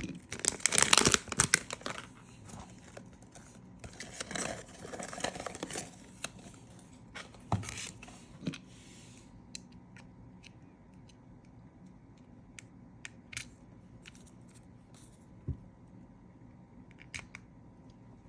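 Blind-box packaging being torn open and crinkled by hand: loud rustling and tearing in the first couple of seconds and again around the fourth to sixth second, then only scattered small clicks and taps as the contents are handled.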